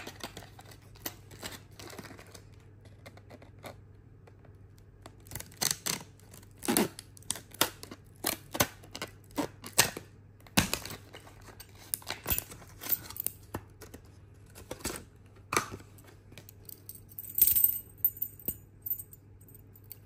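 Scissors cutting open a plastic blister pack holding a brass padlock: a run of sharp snips and plastic crackles. Near the end, a brief metallic jingle from the padlock's keys.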